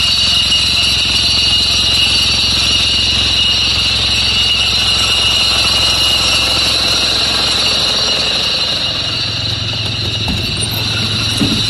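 The locomotive-style bus's engine running steadily at idle, with a constant high-pitched tone over the low rumble. The rumble shifts slightly near the end.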